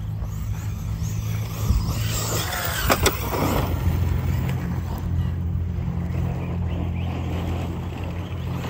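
Arrma Fireteam 6S brushless electric RC car driving across grass and cracked asphalt, its motor and tyre noise swelling and fading as it speeds around, over a steady low rumble. A couple of sharp clicks about three seconds in.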